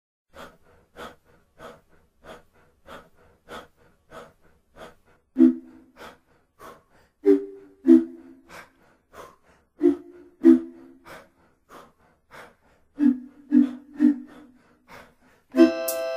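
Rhythmic huffed breaths into a vocal microphone, about three every two seconds, keeping the beat of the song's intro. Short low paired plucked notes join on some of the beats from about five seconds in. The full band comes in with sustained chords right at the end.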